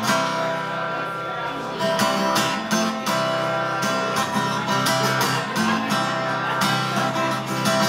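Acoustic guitar strummed in a steady rhythm of chords, the instrumental introduction before the vocal comes in.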